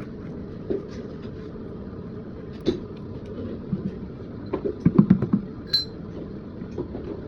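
Scattered clinks and knocks of hard objects being handled, with a burst of knocks about five seconds in and a short high metallic ring just after. A steady low rumble sits underneath.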